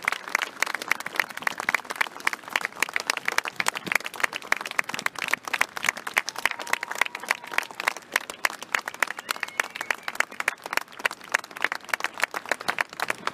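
A large outdoor crowd applauding, many hands clapping in a dense, steady patter throughout.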